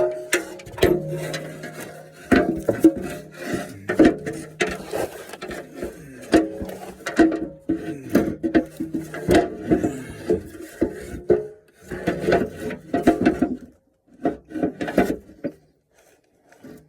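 Irregular knocking, scraping and rubbing of an oil pan, its straps and bolts being handled and worked into place under an engine. The clatter thins to short bursts with quiet gaps near the end.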